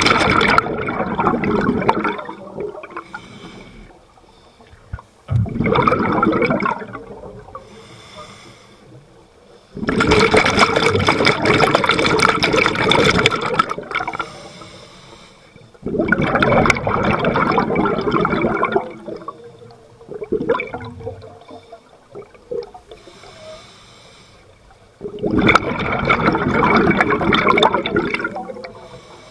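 Scuba regulator exhaust underwater: five loud bursts of bubbling as the diver breathes out, each lasting one and a half to four seconds, with quieter gaps between breaths.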